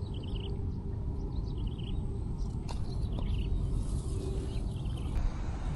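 A small bird singing a short chirping phrase four times, about every second and a half, over the steady low rumble of wind on the microphone.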